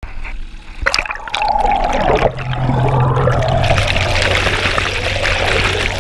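Outboard motor's propeller churning water, heard from underwater: a dense rush of bubbles and turbulence over a low steady drone that settles in about two seconds in, after a few clicks.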